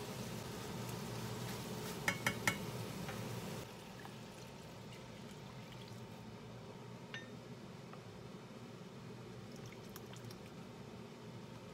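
Kimchi sizzling in a stainless steel pan, with three quick clinks about two seconds in. Then, more quietly, liquid is poured into the pan: first water, then kimchi juice.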